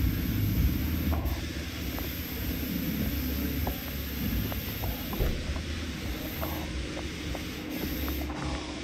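Car wash ambience: a steady low machinery hum with water dripping and spattering in scattered small ticks.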